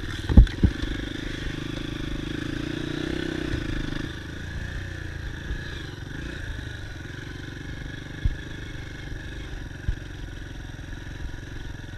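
Dirt bike engine running, steady for about four seconds and then easing off to a quieter, lower run. A few sharp knocks cut through, the loudest two just under a second in.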